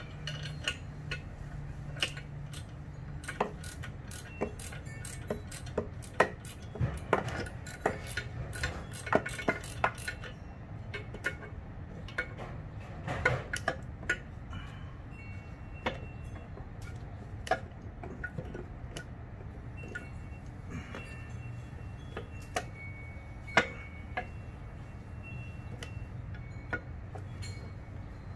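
Irregular metallic clinks and clicks of hand tools and metal parts being handled and worked on, scattered throughout, over a faint steady low hum.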